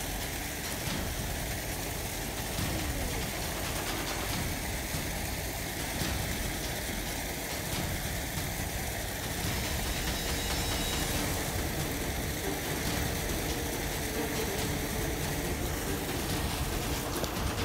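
Steady rush of water pouring from a drain outlet down a concrete wall into a canal, over a low rumble.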